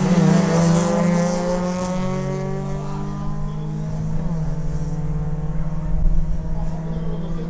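Two Nissan Sentra B13 race cars at full throttle down a quarter-mile drag strip. Their engine notes slide down in pitch and fade as they pull away, over a steady low drone.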